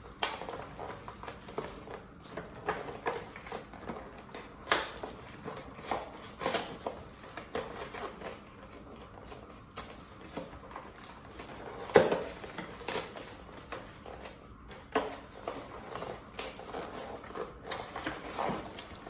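Scattered plastic clicks and short rustles from a USB headset being handled, with a sharper click about twelve seconds in.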